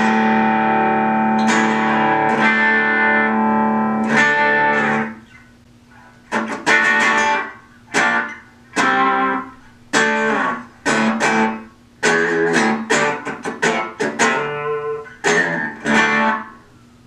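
Electric guitar played through a Boss Katana Mini amplifier. One chord is struck and left to ring for about five seconds, then a run of short strummed chords follows, each cut off after a second or so with brief gaps between.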